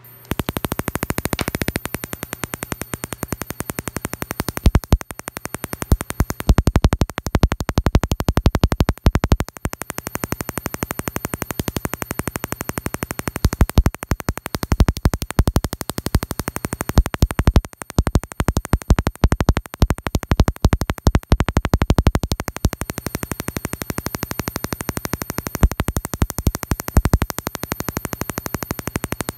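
Mini Tesla coil switching on and sparking: a dense, irregular crackling buzz from arcs jumping between its top terminal and a metal probe, with louder spurts as the arc catches and a thin, steady, high-pitched whine underneath.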